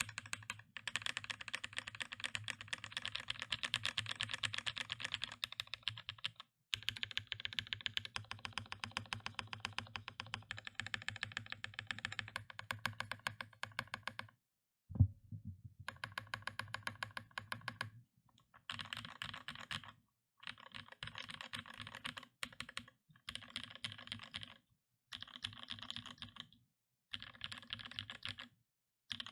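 Fast typing on a Boardsource Mark 65 hot-swap mechanical keyboard with Durock all-POM linear switches lubed with Krytox 205g0, an FR4 plate and GMK keycaps. Long unbroken runs of keystrokes come first, then a single loud thud about halfway through, then shorter bursts of typing with brief pauses between them.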